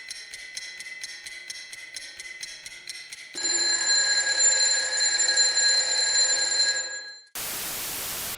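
Electronic earthquake alert tones: a rapid pulsing beep, about four pulses a second, then about three seconds in a louder steady alarm of several tones held for about four seconds, ending in a brief burst of static hiss. The alert heralds an earthquake warning of imminent strong shaking.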